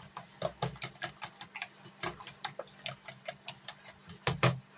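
Raw eggs being beaten in a bowl: a utensil clicks quickly against the bowl, about five strokes a second. The strokes stop near the end after a couple of louder knocks.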